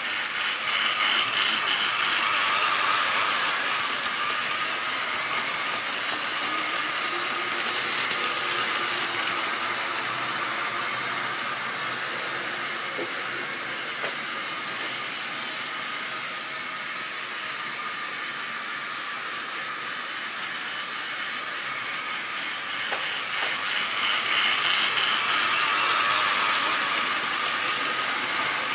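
Triang or Lima model railway trains running on the layout: a steady whirr of small electric motors and the rumble and clatter of wagon wheels on the track. It grows louder for a few seconds near the start and again near the end, as a train of wagons passes close by.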